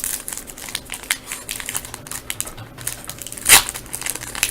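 A hockey card pack's wrapper being torn open and crinkled by hand, a run of small crackles with one louder rip about three and a half seconds in.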